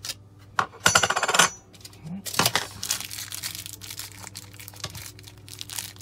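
Steel tape measure blade retracting with a fast metallic rattle about a second in, stopping abruptly as it snaps home, followed by light rustling and clicking of small objects being handled.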